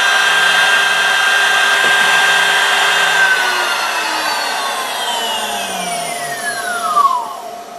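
CNC spindle motor driven by a variable-frequency drive, running with a steady high whine. About three seconds in its pitch starts falling as the drive ramps the spindle down to a stop, briefly louder near the end as it slows.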